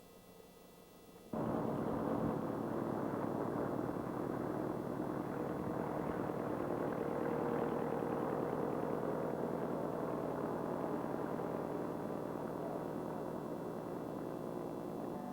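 A light aircraft's piston engine running steadily, cutting in abruptly about a second in after a faint hum.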